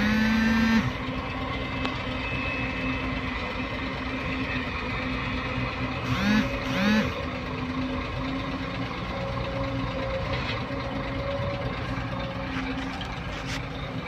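Steady diesel engine hum from a SANY crawler excavator and a dump truck at work. A horn gives a loud blast of nearly a second at the start and two short toots about six and a half seconds in.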